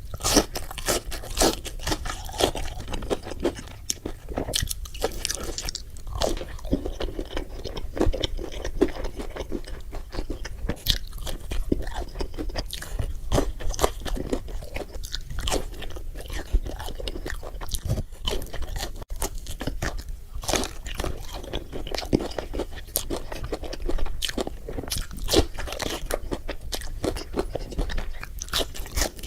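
Close-miked eating: crisp bites and crunchy chewing of fried fast food, with dense irregular crackles and wet mouth sounds running on without pause.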